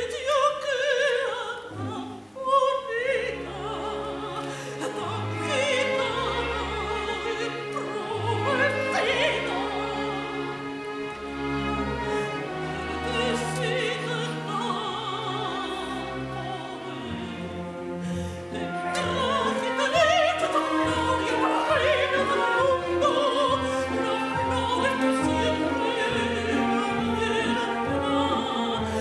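Spanish opera-zarzuela performance: an orchestra plays with operatic singing, the wavering lines of voice and strings over deep held bass notes that give way to a busier accompaniment about halfway through.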